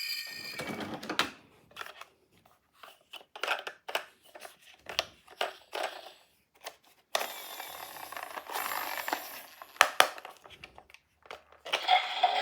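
Small toy ambulance cars being handled: a run of separate clicks and clinks of little cars knocking together and being set down, with a few seconds of steady rushing noise about seven seconds in. A toy's electronic siren sound comes in just before the end.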